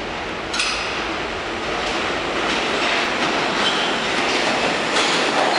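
R46 subway train approaching through the tunnel into an underground station, its rumble growing steadily louder, with its wheels clacking over the rail joints.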